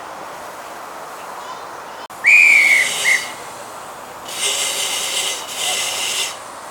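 Miniature 7¼-inch gauge locomotive whistle: one clear toot about two seconds in and a short second toot, followed by two longer hissing blasts.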